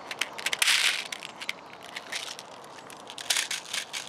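Airsoft speed loader pressed into a CYMA triple-shot shotgun shell, loading .25 BBs with a dense run of plastic clicks and rattles, busiest about half a second in and again near the end.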